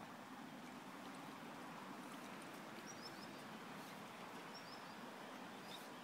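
Steady rush of a river running over stones, with a small bird giving short high chirps about three seconds in and again near five seconds.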